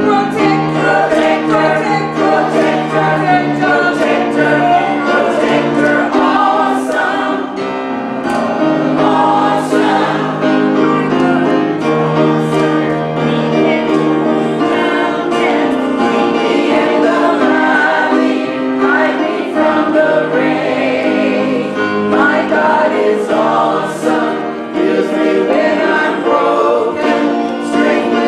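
Gospel praise team and choir singing a hymn in harmony with grand piano accompaniment, sustained and steady throughout.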